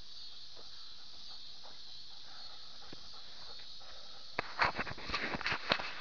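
Steady hiss from a mini-camera strapped to a Rhodesian Ridgeback's chest, with faint rustles. From about four and a half seconds in comes a quick run of sharp clicks and knocks as the camera is jostled against the dog.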